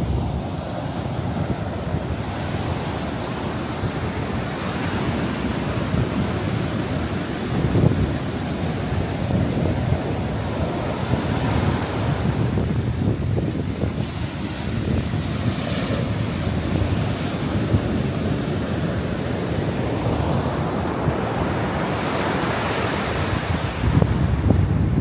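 Ocean surf breaking and washing up a sandy beach, rising and falling in slow swells, with wind buffeting the microphone in a low rumble.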